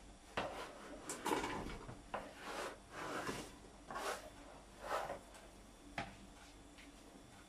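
Chopped vegetables and meat being scraped by hand off a plastic cutting board into a multicooker's bowl: a series of short scrapes and light knocks, about one a second, stopping about six seconds in.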